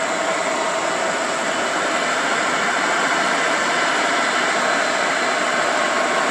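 Diesel engine of a heavily loaded UD Trucks Quester tractor-trailer working under load as the truck approaches. A loud, steady engine-and-tyre noise with a faint held engine note.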